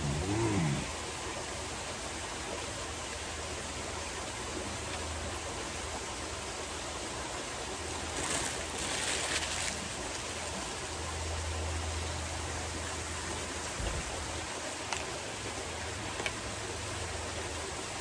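Steady splashing rush of a backyard pool's rock waterfall. A short hum from a voice comes right at the start, and a few faint clicks come near the end.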